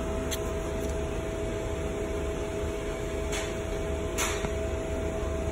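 Steady mechanical hum with a few fixed tones and a low rumble. Two or three faint brief ticks or brushes cut across it, the clearest about four seconds in.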